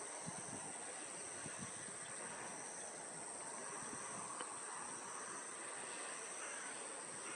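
Steady, unbroken high-pitched insect song, holding two constant pitches, with a few faint low knocks underneath.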